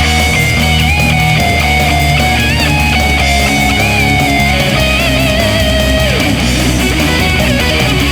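Background music: rock with electric guitar over a steady bass and drum beat.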